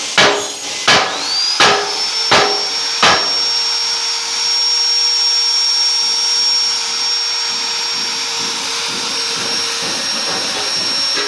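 Electric drill machine spinning up with a rising whine about a second in, then running steadily at a high pitch. In the first three seconds it is accompanied by five sharp knocks, about one and a half per second.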